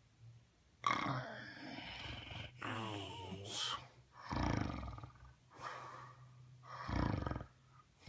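A man snoring in his sleep. About a second in, a run of four or five heavy, rasping snoring breaths begins, one of them with a wavering, fluttering rattle.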